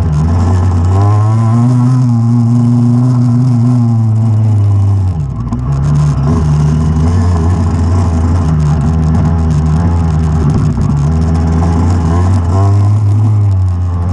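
Off-road motorcycle engine running under load, heard close up from the handlebars, its pitch rising and falling with the throttle. It drops off briefly about five seconds in, then picks back up.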